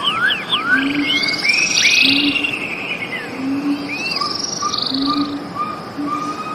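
Several birds calling and singing together, with quick rising and falling whistles and buzzy trills. A low short note repeats at a steady pace underneath.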